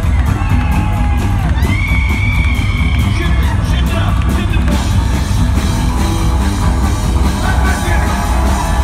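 Live rockabilly band playing: upright bass, electric guitar and drums keep up a driving beat, with people in the crowd whooping and yelling over it.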